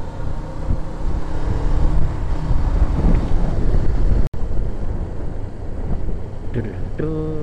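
Suzuki GS500E motorcycle's parallel-twin engine running steadily while the bike is ridden, mixed with wind rush on a helmet-mounted microphone. The sound cuts out for an instant about four seconds in.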